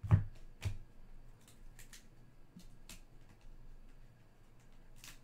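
Trading cards being handled and flipped through by hand: two soft knocks right at the start, the first with a low thud, then scattered faint clicks of card edges.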